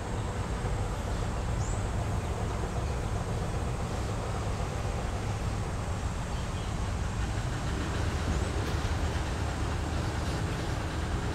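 A steady low rumble, with two faint, brief, rising high bird chirps: one near the start and one about three-quarters of the way through.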